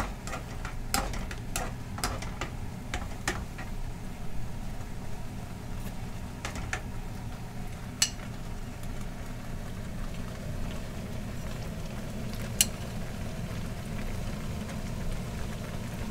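A wok of oysters and maesaengi seaweed simmering with a steady low bubbling, while a metal spoon clinks against a ceramic bowl and the wok as dissolved doenjang is spooned in and stirred. The clinks come several times in the first few seconds, then sharply once about halfway and once more near the end.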